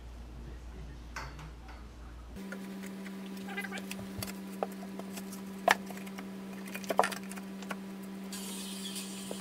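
Scattered light clicks and taps of a thin template sheet being laid and pressed by hand onto an old plank floor, with two sharper knocks a little past the middle. A steady low hum comes in a couple of seconds in.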